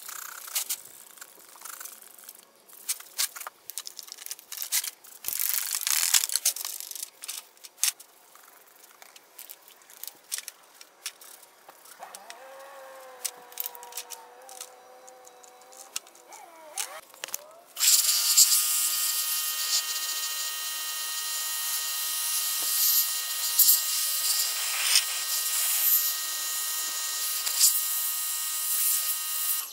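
Ratchet wrench clicking, with metal clinks from the parts of a small engine being taken apart. A little past halfway a pressure washer starts up and runs to the end: a loud, steady spray hiss with a whine from the machine, its jet hitting a plastic fuel tank.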